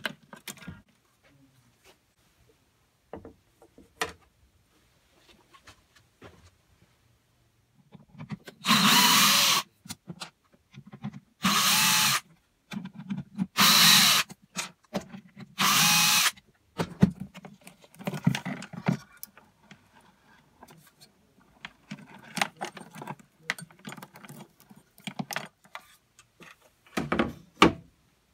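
Cordless drill/driver running in four short bursts of about a second each, backing out screws. Small clicks and knocks of handling come between and after the bursts.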